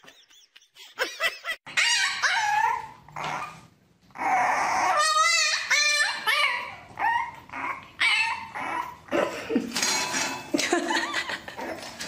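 Puppy whining and yipping: a string of short, high cries whose pitch slides up and down, starting about two seconds in.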